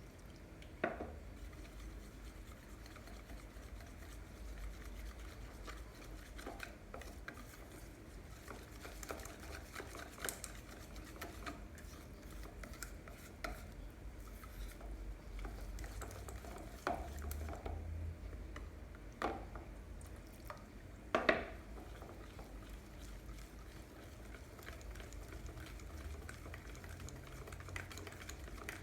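Pancake batter being mixed by hand in a bowl, a utensil scraping and clinking against the bowl, with a few louder knocks.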